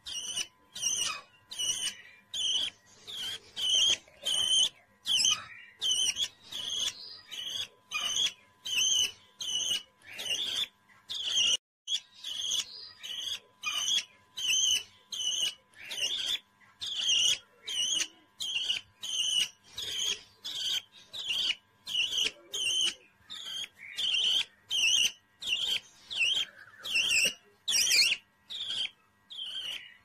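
Young cockatiel chick calling over and over: short, raspy, high chirps at about two a second, with no let-up.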